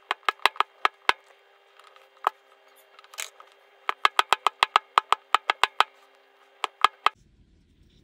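Background music: runs of quick, evenly spaced plucked or clicked notes over a held steady note, cutting off abruptly about seven seconds in.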